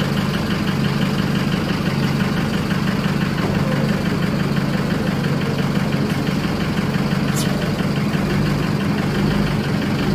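Mercedes-Benz truck diesel engine idling steadily while a smooth-running test runs on its CDI2 control unit. The idle speed is wandering, and the diagnosis finds leaking injectors on cylinders one and four.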